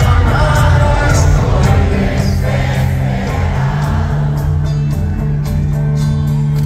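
Live rock band playing loudly through an arena sound system, with a lead vocal and the crowd singing along.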